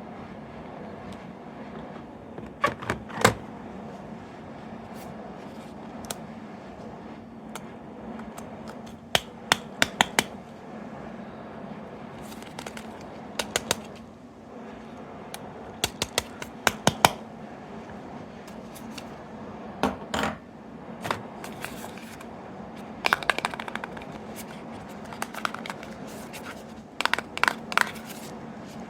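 Small hard plastic toys being handled: clusters of sharp clicks and light taps every few seconds, over a steady low hum.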